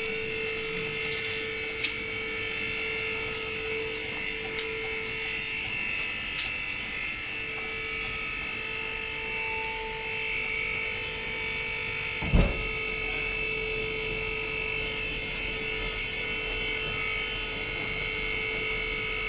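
Hydraulic power pack of a two-level car parking lift running steadily, its electric motor and pump giving an even whine as the platform raises a car. A single thump about twelve seconds in.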